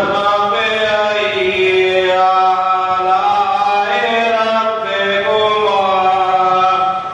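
A man chanting a melodic religious recitation into a microphone, drawing out long, ornamented held notes. He breaks off briefly for breath near the end.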